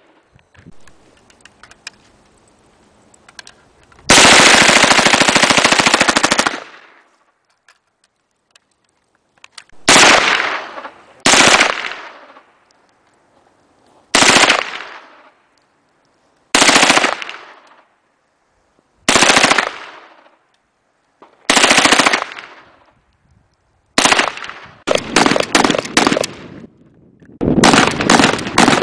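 Gunfire at an outdoor firing session. A burst of automatic fire lasts about two and a half seconds. Then come single shots roughly every two and a half seconds, each with a long echoing tail. Near the end there are two rapid strings of shots.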